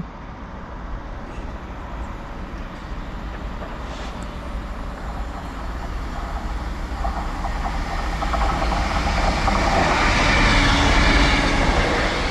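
Freight train hauled by a Class 66 diesel locomotive approaching and passing. The engine and wheel noise grows steadily louder and is loudest about ten seconds in.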